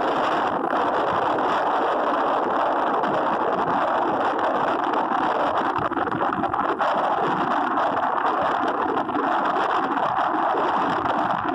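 Steady rush of wind over the microphone of a camera mounted on a moving vehicle, mixed with road noise, even throughout with no distinct engine note.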